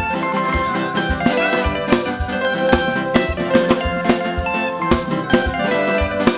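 Live band playing an instrumental passage: electric guitars and keyboard over a drum kit keeping a steady beat.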